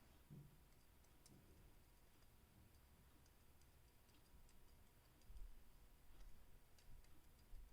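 Near silence: room tone with a few faint small clicks and soft low knocks, as of small objects being handled on a work surface.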